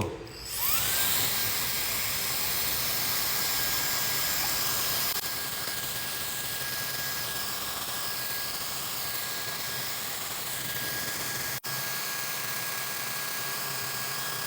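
High-speed hair dryer running at full speed. Its motor whine rises as it spins up in the first second, then holds one high pitch over a strong rush of air.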